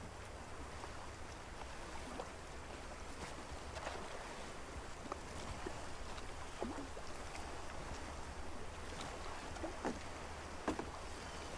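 Quiet shoreline ambience: a steady low hiss of calm water and air, with a few short creaks and knocks in the second half, like a small boat's oars working.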